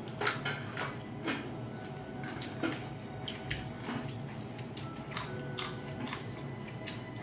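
Boiled lobster shell being cracked and picked apart by hand: irregular sharp clicks and snaps, a couple each second, over a steady low hum.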